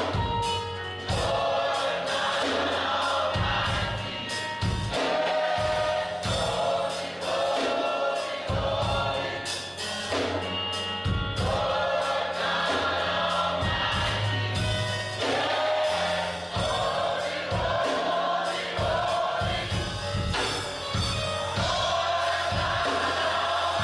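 Gospel choir singing with band accompaniment: a steady bass line and a regular beat under the sung phrases.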